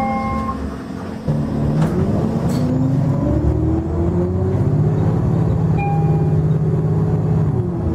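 Cummins ISL9 diesel engine of a Nova Bus LFS transit bus, with its Allison automatic transmission, accelerating, heard from inside the passenger cabin: the engine note climbs steadily for a few seconds, holds, then drops near the end. A chime tone dies away in the first half second.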